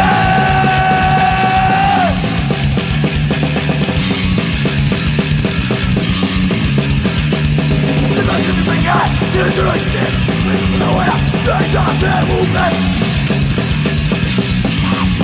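Live punk rock band playing an instrumental passage with distorted electric guitar, bass and drum kit. A guitar note is held for about the first two seconds, followed by fast playing with bent notes.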